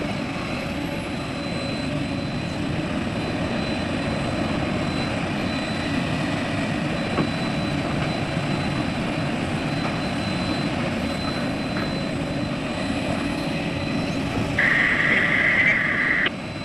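Heavy diesel machinery running steadily, with a louder, higher noise lasting under two seconds near the end.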